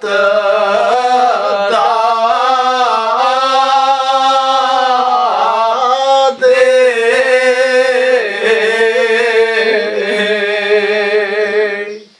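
A man chanting a Kashmiri Muharram elegy in long, drawn-out sung phrases, with a brief breath about six seconds in.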